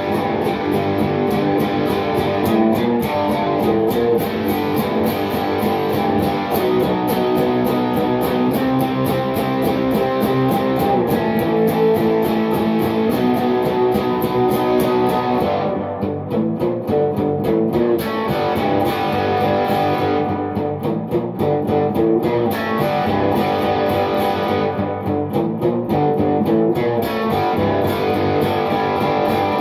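Solid-body electric guitar played through an amplifier over a steady beat. The high ticking of the beat drops out briefly three times in the second half.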